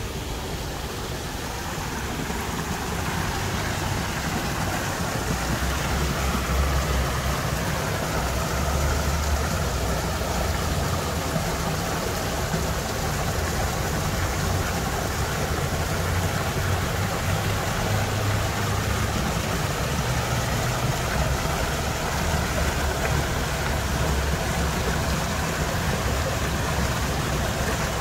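Steady rush of running water in a garden pond's waterfall and stream, over a low city rumble.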